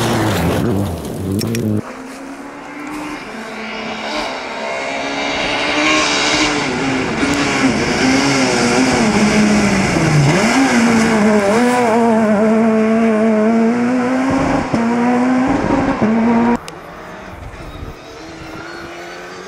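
Rally cars at full throttle on a gravel stage. A car passes in a spray of gravel, then a Peugeot 207 rally car's engine revs hard as it approaches, its pitch dropping briefly about ten seconds in as it lifts and changes down before climbing again. The sound cuts suddenly near the end to a quieter Mitsubishi Lancer Evolution rally car approaching.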